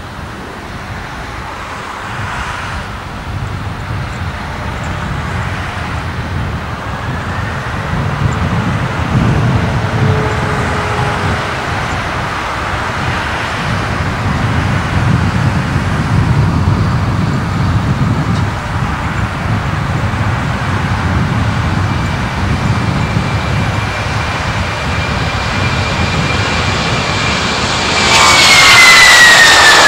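Boeing 767-200F's twin jet engines running as the freighter rolls down the runway, slowly growing louder with a steady high whine. About two seconds before the end it jumps much louder as the jet passes close by, its whine falling in pitch.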